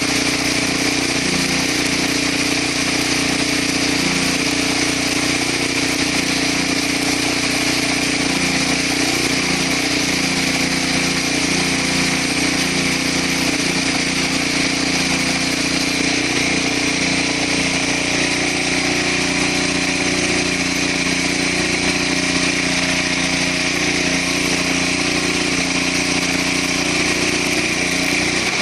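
Engine-driven CO2 welding generator running steadily: an even engine drone with a strong steady hiss over it.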